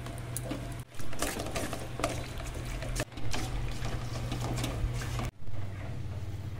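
Hands squishing raw chicken pieces through a yogurt and chilli-powder marinade in an aluminium bowl, wet squelches and small clicks over a steady low hum. The sound cuts out abruptly about a second in, again about three seconds in, and once more past five seconds.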